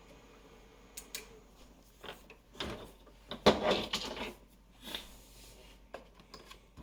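Handling noises from parts being worked with by hand: a few sharp plastic clicks and brief scraping and rustling, in irregular bursts.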